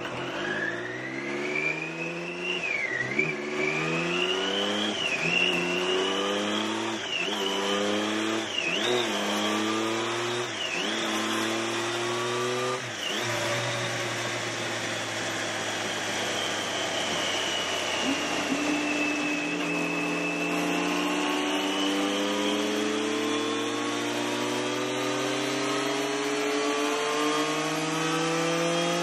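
Triumph Daytona 675 three-cylinder engine running hard on a rolling-road dyno. In the first half the revs climb several times, each climb cut by a brief sharp drop as it shifts up through the gears. The engine then holds, and from about two-thirds in it climbs in one long, smooth full-throttle pull, with the rear tyre and rollers whirring underneath.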